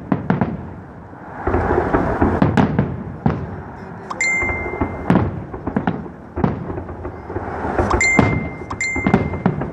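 Aerial fireworks display: a rapid run of sharp bangs from shells bursting overhead, with rumbling echoes in between. A steady high tone sounds briefly three times, once about four seconds in and twice near the end.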